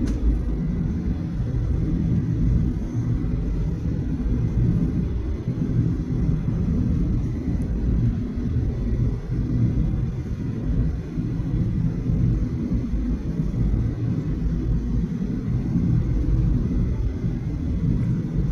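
Steady low rumble inside the passenger cabin of a Boeing 737-800 airliner.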